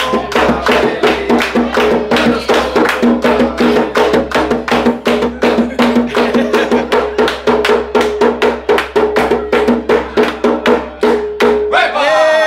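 A group of waiters singing a birthday song and clapping in a steady rhythm, about four claps a second, with a hand drum beaten along.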